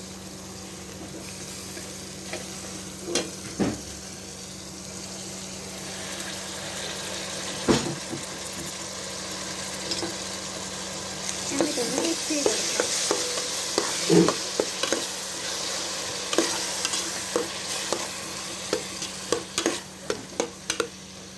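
Onions and chopped tomatoes sizzling in hot oil in a metal pot while a spoon stirs them. The sizzle grows louder about halfway through, and from then on the spoon knocks and scrapes against the pot over and over.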